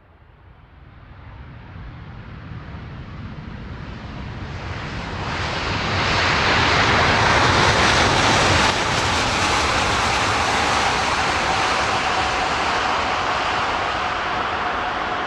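Jet airliner's engines growing from faint to loud over about six seconds as the aircraft approaches, then staying loud with a steady whine.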